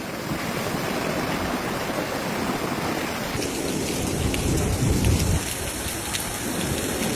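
Heavy rain pouring down steadily. The hiss brightens about three seconds in, and low rumbles come through around five seconds in.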